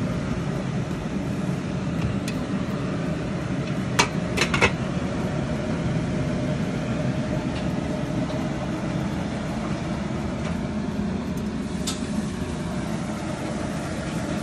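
Steady low noise of water boiling under a stainless steel steamer pot. A few sharp metallic clinks come about four seconds in as the glass lid is set on the pot, and one more clink comes near the end.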